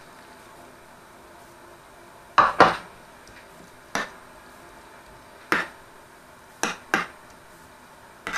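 A kitchen utensil knocking sharply against a dish, about seven irregular taps, some in quick pairs, as salted cucumbers are spooned into a layered salad.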